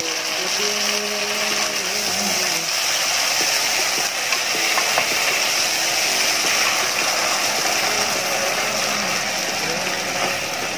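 Pork, garlic and kimchi sizzling steadily as they are stir-fried in a nonstick pan, with a wooden spoon stirring and scraping through them.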